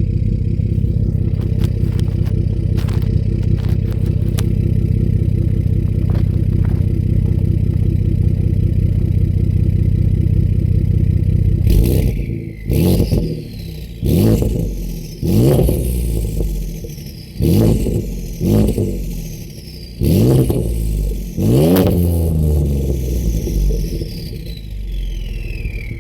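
2013 Ford F-150's 3.5L EcoBoost twin-turbo V6, breathing through catless downpipes and an MBRP cat-back exhaust, idling steadily. About halfway through it is revved in short blips, about seven times. Each rev is followed by a high turbo whistle that falls in pitch, the last one long and trailing down near the end.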